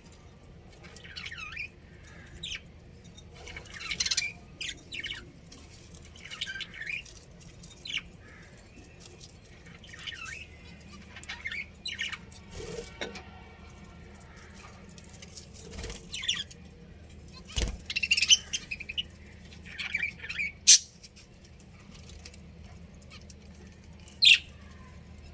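Budgerigars giving short, scattered chirps and squawks, with a couple of sharp knocks in the second half.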